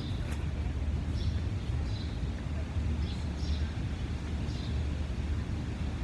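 Steady low rumble of outdoor background noise on a phone microphone, with faint brief higher sounds coming every second or so.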